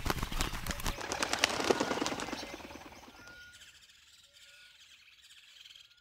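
A bird's wings flapping in a rapid flutter for about three seconds, then fading away, with a few faint short chirps.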